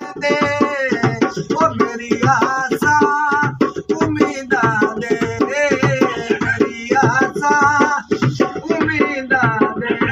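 A man's voice singing a Punjabi naat (devotional song), accompanied by his own hand beats on a dholak barrel drum in a steady, driving rhythm.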